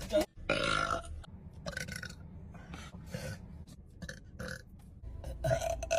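A girl burping loudly: a long burp in the first second, smaller sounds through the middle, and another loud burp near the end.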